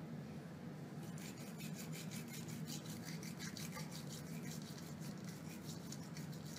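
Toothbrush scrubbing a Maltese puppy's teeth: quick scratchy bristle strokes, several a second, starting about a second in, over a steady low hum.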